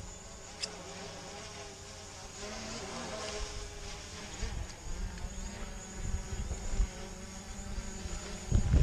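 DJI Mavic Pro quadcopter hovering overhead, its propellers buzzing as a steady whine of several held tones, with low rumbles coming and going underneath.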